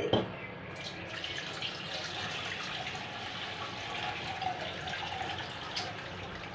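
Water poured from a steel pot through a perforated steel colander, a steady splashing stream as boiled noodles are drained after rinsing, after a brief knock at the start.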